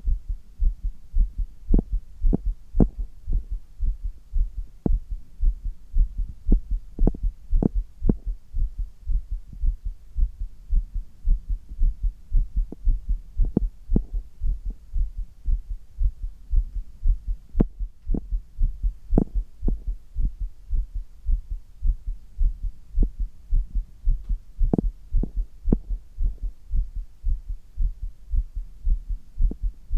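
A close-miked human heartbeat: a fast, steady run of low, strong thuds, raised by handstand push-ups, with now and then a sharper click.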